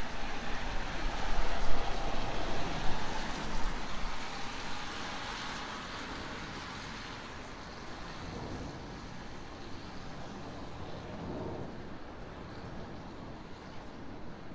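Airliner passing overhead, its noise falling slowly in pitch and fading over the first five seconds or so into a steady city hum, with wind buffeting the microphone at the start.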